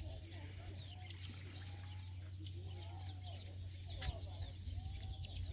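Birds chirping in quick high notes, with hens clucking lower down, over a steady low hum; a single sharp click about four seconds in.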